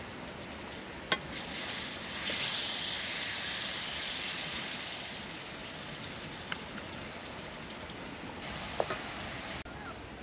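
Food frying in a metal pan over a wood fire: a sizzle that swells loud after a clink of the spatula about a second in, then eases to a steady hiss, with a few more light spatula taps.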